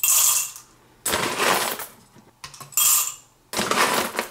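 Whole coffee beans tipped from a metal tablespoon into the Mr. Coffee blade grinder's empty chamber, clattering in four short rattles about a second apart.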